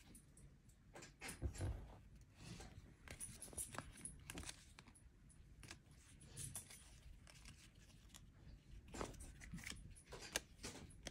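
Faint rustle and soft irregular clicks of baseball cards being slid off a stack one at a time by hand, with the crinkle of a foil card-pack wrapper held in the other hand.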